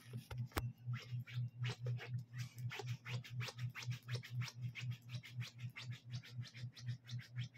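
Smooth-coated dachshund chewing and rooting at its paw and the bedding: rapid, irregular scratchy clicks. Under them runs a low hum that pulses about three times a second.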